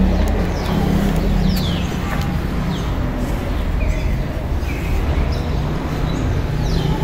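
Steady low street rumble with birds chirping over it in short, falling notes about once a second.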